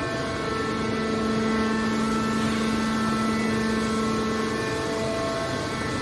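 Aluminum can baler's hydraulic power unit running with a steady hum and whine that holds one pitch.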